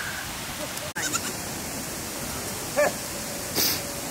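Goats bleating in short calls over a steady background hiss, with a brief sharp hiss shortly before the end.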